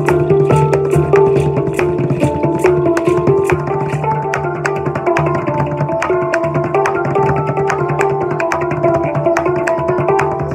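A handpan and an upturned plastic bucket played as a drum with drumsticks, busking together. The handpan's ringing notes sound over a quick, steady beat of stick strokes on the bucket.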